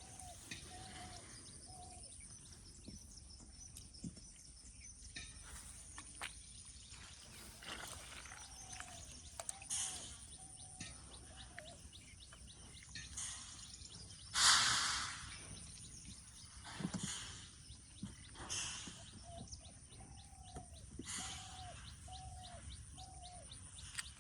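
Outdoor rural ambience of birds calling, with runs of short repeated notes coming back several times, over a steady high insect whine. About halfway through there is one brief, loud rush of noise.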